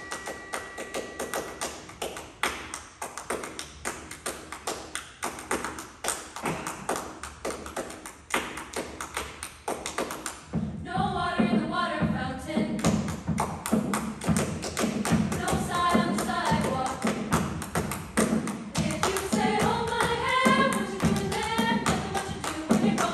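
School choir performance: a steady beat of taps and thumps for about the first ten seconds, then the choir comes in singing over the beat, and the music grows louder.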